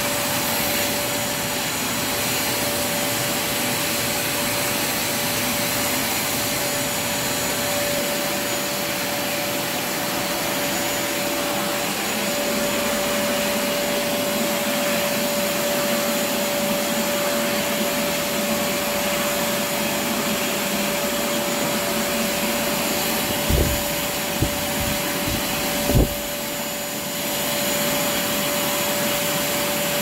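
WAP GTW 10 wet-and-dry vacuum cleaner (1400 W) running steadily, a constant whine over its rushing air. A few short knocks come about 23 to 26 seconds in.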